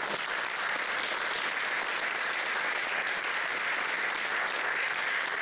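Small audience clapping, a steady, even round of applause.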